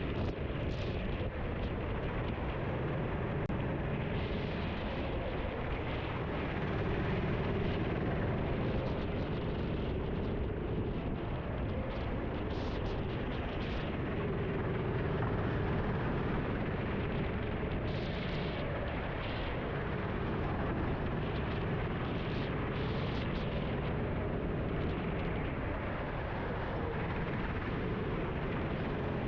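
Racing kart engine running at speed, its pitch rising and falling with the corners, heard from onboard under heavy wind noise on the microphone.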